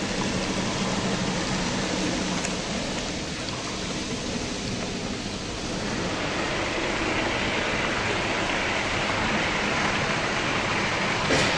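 OO gauge model train running past close by: a steady whirr and rumble of the locomotive motor and wheels on the track, growing louder and brighter about six seconds in as the coaches pass, with a sharp click near the end.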